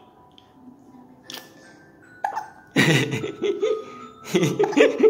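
Baby making short vocal sounds in two loud bursts, about three and four and a half seconds in.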